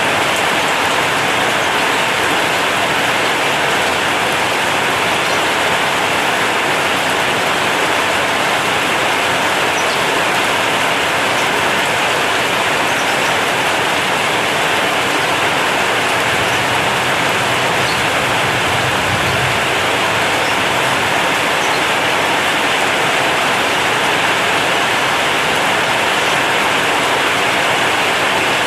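Heavy rain falling on a corrugated zinc (seng) roof: a steady, dense hiss of countless drops that never lets up.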